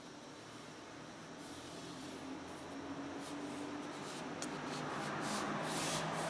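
Fingers and palms rubbing and pressing a decal's transfer film onto a motorcycle fuel tank: soft brushing strokes that grow louder, strongest near the end.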